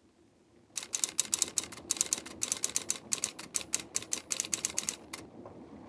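Typewriter keys striking in a quick, uneven run of clacks, about five a second, starting just under a second in and stopping about five seconds in, over a faint steady hiss.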